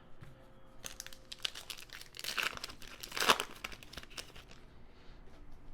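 Trading cards and their foil pack wrapper being handled: irregular crinkling and rustling with small clicks, loudest in two bursts around the middle.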